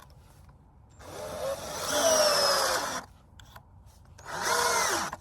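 Power drill driving screws into wooden wall framing: a run of about two seconds starting about a second in, then a shorter run near the end, the motor's whine bending in pitch as it speeds up and slows.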